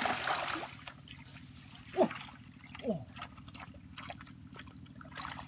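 Hands splashing and churning in shallow muddy water, then quieter trickling as the water settles. Two short downward-sliding sounds come about two and three seconds in.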